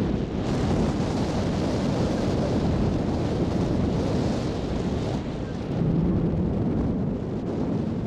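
Wind buffeting the microphone aboard a moving boat, with the rush of the boat and water underneath. A harsher hiss rides on top from about half a second in until about five seconds in.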